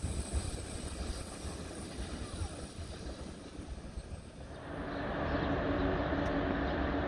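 Train running at a railway station: the rumble dies down, then about four and a half seconds in a train's running noise rises again into a steady hum.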